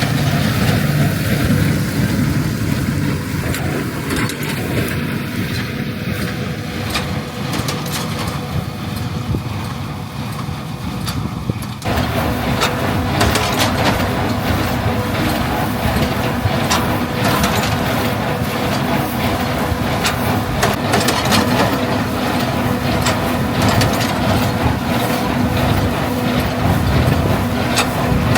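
Farm machinery running: first the low, steady running of a tractor engine, then about twelve seconds in an abrupt switch to louder mechanical clatter with many quick ticks and knocks.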